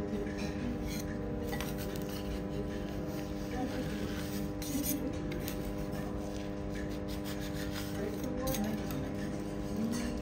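Metal spatula scraping across a steel teppanyaki griddle in repeated short strokes, lifting a thin crisp layer off the hot plate.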